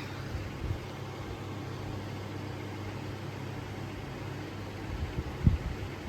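Harbor Breeze Armitage ceiling fan running: a steady motor hum with a rush of air. A few short low thumps sound over it, the loudest about five and a half seconds in.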